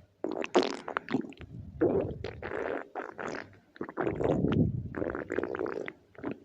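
A hungry stomach growling: a run of long, gurgling rumbles full of small squelchy pops, broken by short gaps, with a brief lull just past halfway.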